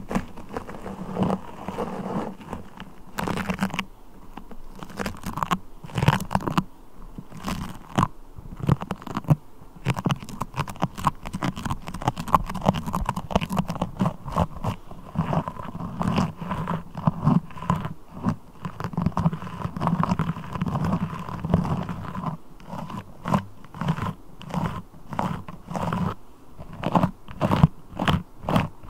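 Beeswax and a sticky crawler toy pressed and pulled close to the microphone: a dense, irregular run of sticky crackling and clicking, with sharper separate clicks near the end.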